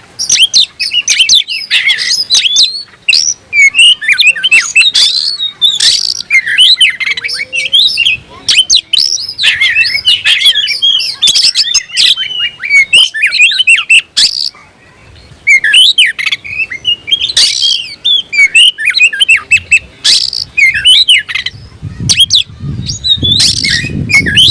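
Oriental magpie-robin (kacer) singing loudly and almost without a break: a fast, varied stream of chirps, whistles and harsher notes, pausing briefly a little before halfway. This is the full, aggressive song a kacer gives when challenging a rival.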